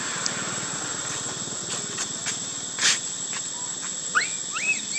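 A young macaque gives three short high squeals from about four seconds in, each rising then falling in pitch, over a steady high-pitched whine. A short sharp noise about three seconds in is the loudest moment, with a few lighter clicks around it.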